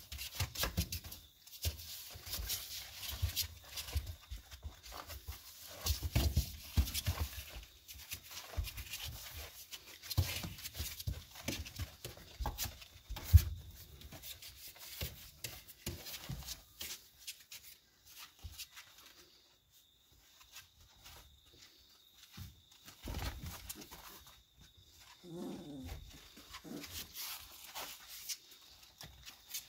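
Maremma sheepdog puppies about three weeks old scuffling and play-fighting: paws and claws scrabbling on a blanket and against cardboard box walls, with one sharp knock a little under halfway through. The scuffling goes quiet for a few seconds past the middle, and a short puppy whine comes near the end.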